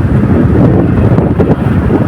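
Loud wind rumble buffeting the microphone of a moving motorcycle.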